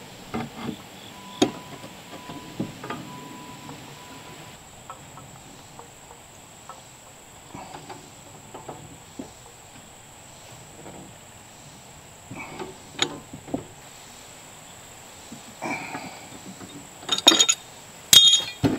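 Pipe wrench working a threaded tee onto a black iron gas pipe: scattered metal clicks and clinks as the fitting is turned tight, with a quick run of louder clanks near the end.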